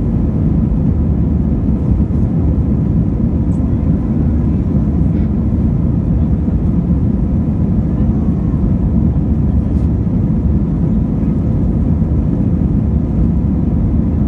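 Airliner cabin noise in the climb after takeoff, heard from a window seat over the wing of an Airbus A320-family jet: a steady low rush of jet engines and airflow with faint steady hums.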